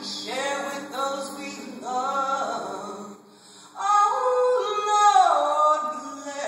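A woman singing solo into a microphone, her sung phrases wavering with vibrato; after a short breath a little over three seconds in, she holds a long note that slides down in pitch near the end.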